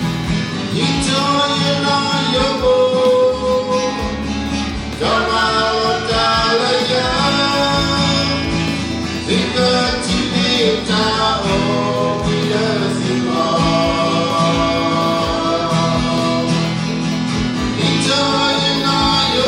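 A song: singing over strummed acoustic guitar.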